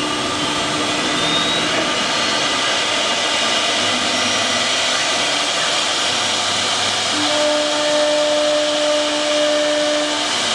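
A 4.5 kW CNC wood router running, giving a loud, steady machine noise. A steady hum comes in about seven seconds in and stops just before the end.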